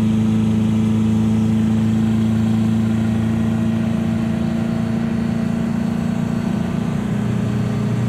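Four-cylinder turbo diesel engine heard from inside the cab, running steadily at highway speed at about 3,300 to 3,500 rpm: a steady, even drone.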